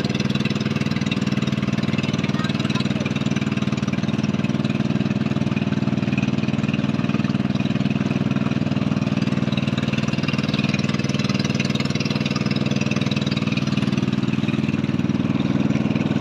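Small boat's motor running steadily at an even speed, with a constant low hum and no change in pitch.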